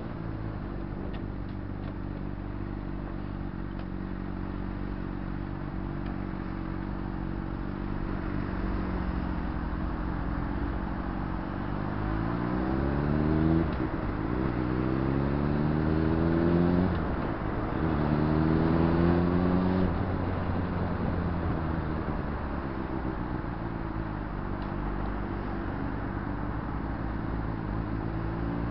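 Honda CBR600RR's inline-four engine running at steady low revs, then revving up twice about halfway through, with a sudden drop in pitch between the two rises as it shifts up. It then holds steady and falls back to lower revs as the throttle eases off.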